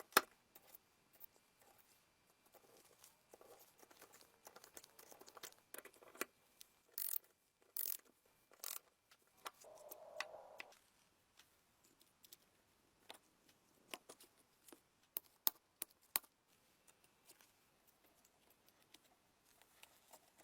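Scattered clicks, taps and short scratchy scrapes of hand work on an antique hair dryer's parts, with a longer scrape lasting about a second, about ten seconds in.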